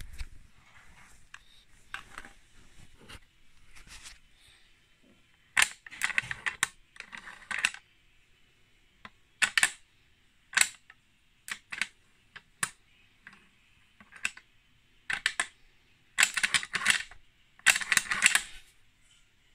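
Winchester Model 70 push-feed bolt action being worked by hand: sharp metallic clicks and short sliding clacks as the bolt is lifted, drawn back and pushed home again, in several bursts with short pauses, the busiest near the end.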